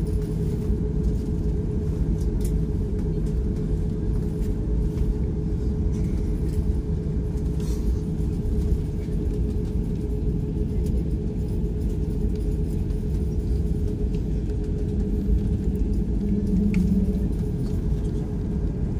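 Cabin noise of an Airbus A340-600 taxiing: a steady low rumble from its Rolls-Royce Trent 500 engines at idle and the wheels rolling on the taxiway, with a steady hum throughout.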